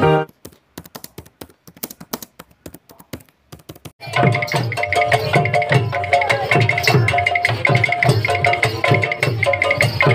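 A logo jingle cuts off, followed by a few seconds of faint clicks. About four seconds in, a kirtan troupe's hand-played barrel drums start up in a steady rhythm of roughly two low strokes a second, with a bright ringing pattern repeating above them.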